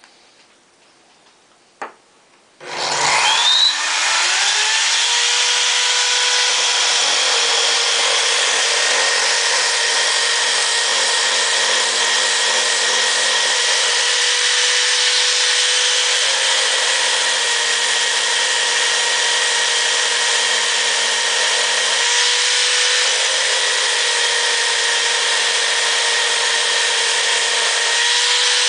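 Electric hand drill, mounted in a drill stand, switched on about three seconds in and spinning up to a steady whine. It turns a wooden toy wheel that is being sanded by hand to take off burrs and splinters.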